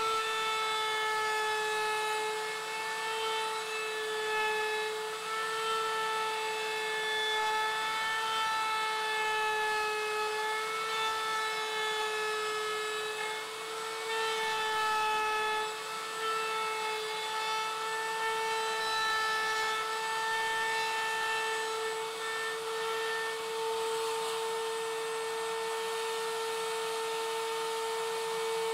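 Table-mounted router running with a steady high whine as its round-over bit cuts the top edge of a round spalted maple tabletop fed around it. The pitch wavers slightly as the bit takes the wood.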